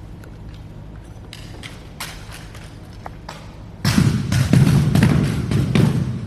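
Drill rifles being handled by the drill team: scattered sharp wooden knocks and clicks, then about four seconds in a loud burst of many rapid knocks over a wash of noise lasting about two seconds before it drops away.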